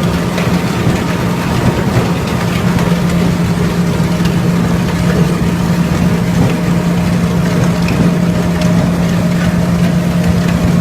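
Ultrafine powder grinding mill plant running: a steady, loud industrial hum with a strong low tone.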